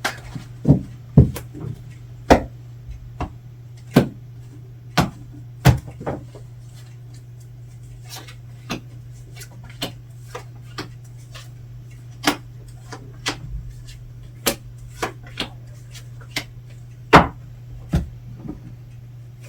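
Cards being handled and laid down on a table: sharp, irregular taps and clicks, some close together, over a steady low hum.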